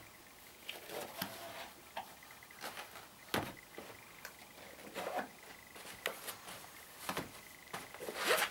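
Irregular light taps and knocks of suede stiletto pumps being handled and set down, with a few louder knocks about three and a half, seven and eight seconds in.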